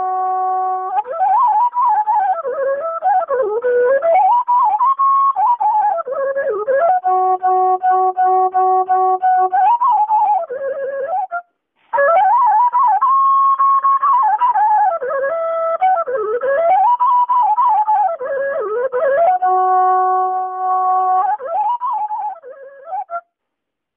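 Washint, the Ethiopian end-blown bamboo flute, playing a melody of long held notes broken by quick ornamented runs. It pauses briefly about halfway and stops shortly before the end.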